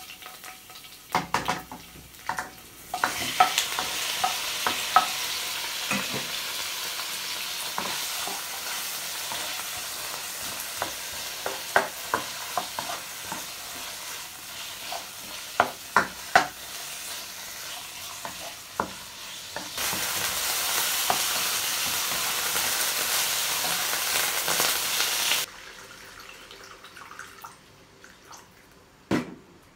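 Chicken pieces sizzling in hot oil in a nonstick wok, with the clacks and scrapes of a plastic spatula stirring and turning them against the pan. The sizzle swells louder for several seconds, then drops away sharply near the end.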